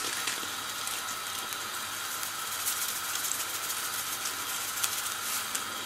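Squid rings cooking in olive oil and white wine in a stainless steel pan: a steady sizzle with faint crackles.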